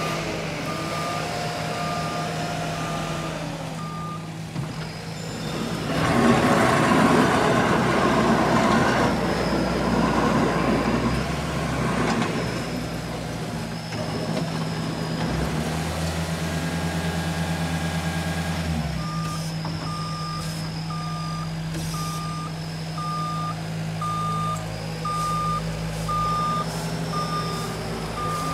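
Heavy diesel equipment idles steadily while its backup alarm beeps about once a second. The beeping stops about four seconds in and starts again about two-thirds of the way through. In between there is a loud, rough rumble lasting about six seconds, and later the engine works harder for a few seconds.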